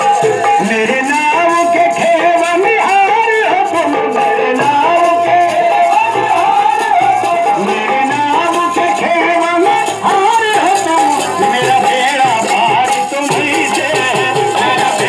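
A man singing a devotional song into a microphone over a harmonium's held, droning chords, with a rattling percussion keeping time.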